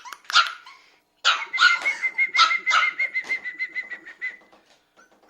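Toy-breed puppy yapping in a quick run of high, sharp barks, about three a second, after a short pause near the start. A thin, steady, high whine runs under the barks for a few seconds.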